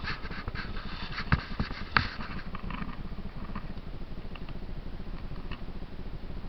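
Dirt bike engine idling with a steady, rapid low putter, and two sharp knocks about a second and two seconds in.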